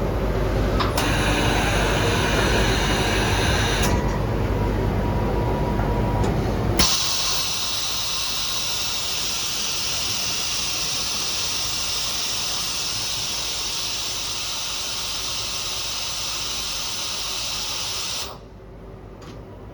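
Automated circuit-board final-cleaning machine running. A low mechanical rumble comes first, with a short hiss. About seven seconds in, a loud, steady hiss starts, and it stops abruptly near the end, leaving a quieter hum.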